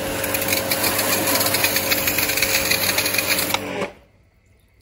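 Pressure washer running, its jet of water hissing against a car door panel over a steady motor hum. The sound cuts off suddenly about four seconds in.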